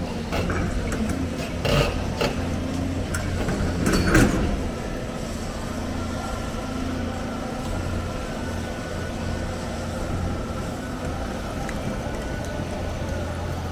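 Diesel engine of heavy machinery running steadily, with a few sharp metallic knocks in the first few seconds, the loudest about four seconds in.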